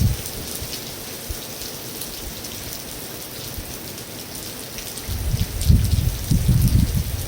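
Rain falling on a metal roof: a steady hiss dotted with sharp drop ticks. A heavy low rumble fades in the first moment and comes back strongly about five seconds in.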